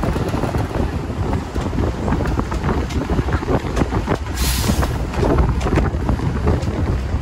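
Open-sided tour bus driving uphill: a steady rumble of engine and road noise with wind on the microphone, and a brief hiss about four seconds in.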